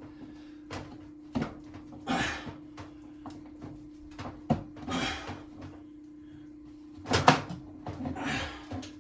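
Scattered knocks, clunks and short rustles of a microwave and kitchen cabinet being handled while the microwave's power cord is fed up through the cabinet above, with the loudest knocks about seven seconds in. A steady low hum runs underneath.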